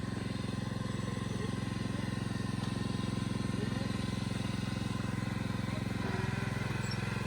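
Mini farm tractor's small engine running steadily at low speed, its tone shifting slightly about six seconds in.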